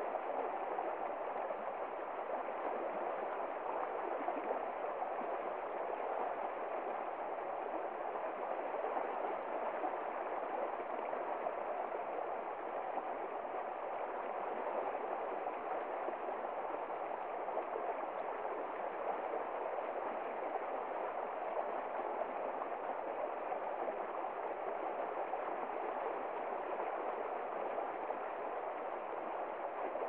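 Small rocky stream rushing and splashing over stones in a small cascade, a steady, even flow of water.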